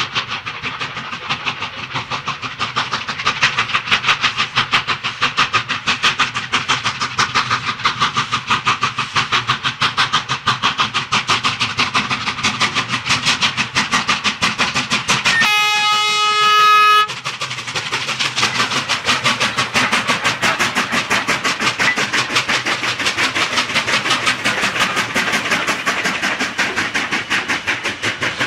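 QJ-class 2-10-2 steam locomotive passing close by while working hard, its exhaust beating in a rapid, even rhythm. About halfway through it gives one steam whistle blast lasting about a second and a half. The exhaust beats then carry on as the wagons roll past.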